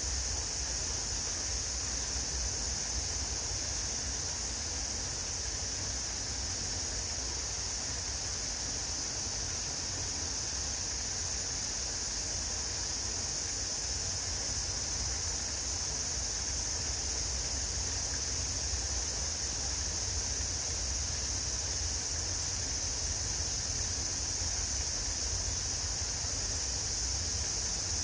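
Steady chorus of summer cicadas, an even high-pitched hiss that never changes, with a low rumble underneath.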